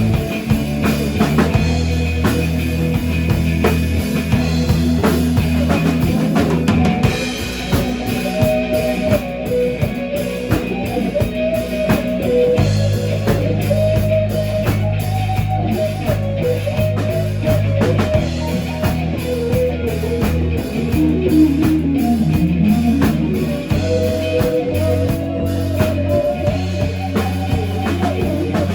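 A band playing a rock song: drum kit and bass under electric guitar, with a melodic line wandering over them.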